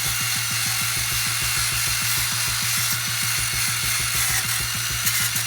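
Power drill with a wire brush scrubbing rust off a car's rear hub mounting plate: a steady, harsh grinding hiss.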